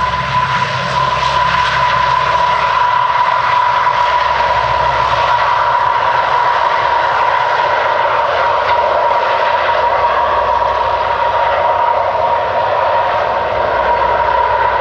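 Lockheed P-3C Orion's four Allison T56 turboprop engines running as the aircraft rolls along the runway after landing, with a steady high-pitched whine over the engine and propeller noise.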